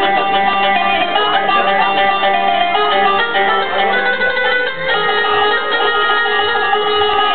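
Egyptian tanoura-dance music: plucked string instruments over a steady, repeating low beat.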